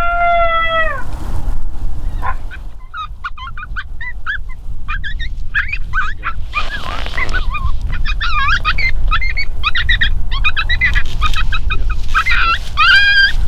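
Coyote vocalizations: one falling howl at the start, then from a few seconds in a growing chorus of short, quavering, high-pitched yips. Steady low wind rumble on the microphone sits underneath.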